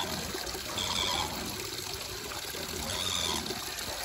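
Water running steadily from an outdoor tap, pouring into a plastic basin of water. Two short higher-pitched sounds rise above it, about a second in and again about three seconds in.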